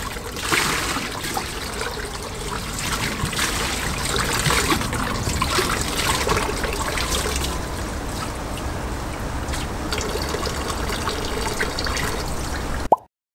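Water trickling steadily from a metal drinking-water spout and splashing onto the grate below, as a plastic dipper is filled under it. The sound cuts off suddenly near the end.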